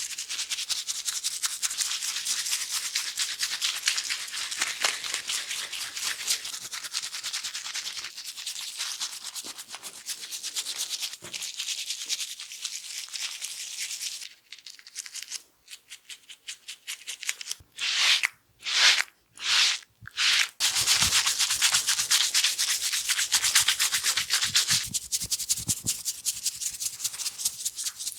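Fingers scrubbing shampoo-lathered hair and scalp: a dense, rapid, scratchy rubbing that thins out about halfway, gives way to four louder swishes of about half a second each, and then resumes.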